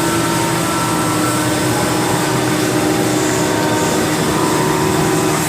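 Haas VF-4SS CNC vertical machining center running: a steady mechanical hum with several held tones over a hiss.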